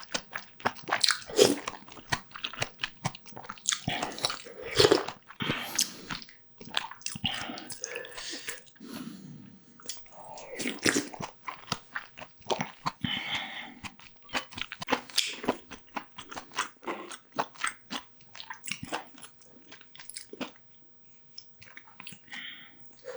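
Close-miked eating: repeated biting and chewing of food with crunching, in quick irregular clicks and bites.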